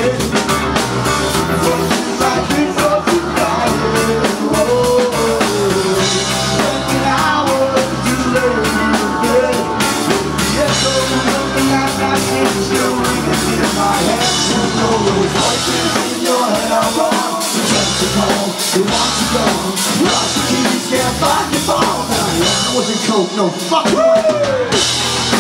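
Punk rock band playing live and loud: electric guitars, bass guitar and drum kit, with vocals. The deepest bass drops out briefly a couple of times in the second half.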